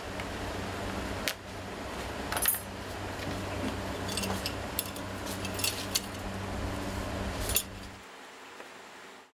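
Small hammer striking steel carving punches into cowhide on a wooden block, with irregular sharp metallic taps and clinks, a cluster of them about four to five seconds in. A steady low hum runs underneath and cuts off near the end.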